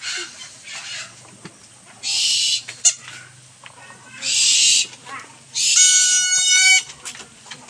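A captive owl giving harsh, hissing screeches, three times, each under a second, the last one longest.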